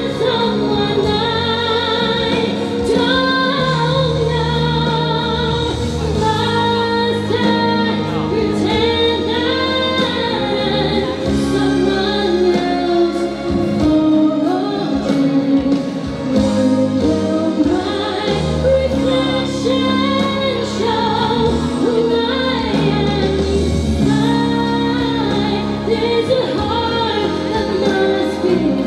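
A woman singing solo into a handheld microphone over instrumental accompaniment, holding long notes with vibrato.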